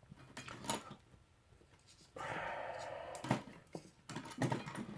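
Small parts of a model locomotive being handled on the workbench: light clicks and taps, with a steady hiss for about a second in the middle.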